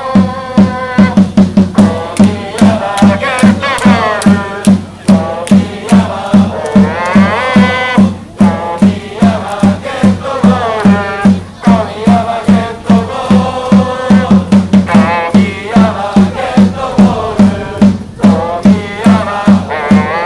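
Football supporters' chant sung to a steady drum beat of two to three hits a second.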